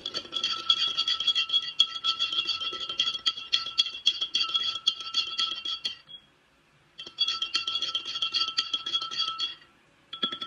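Long metal spoon stirring coffee in a tall ribbed glass, clinking rapidly against the sides so the glass rings. The stirring stops for about a second midway, then starts again, with a couple of last clinks near the end.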